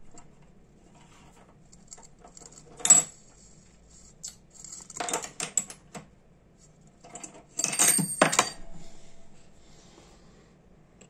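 Small metallic clicks and clinks from the metal body of a Ronson Premier lighter being handled: a sharp click about three seconds in, a short run of clicks about two seconds later, and a louder cluster with a brief high metallic ring near the end.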